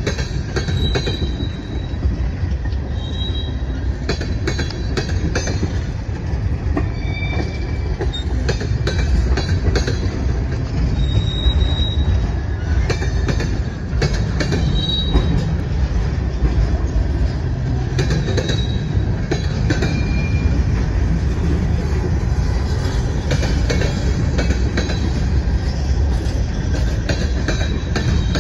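Freight cars (tank cars and centerbeam flatcars) rolling past: a steady low rumble of steel wheels on rail, with scattered clacks and several brief high-pitched wheel squeals.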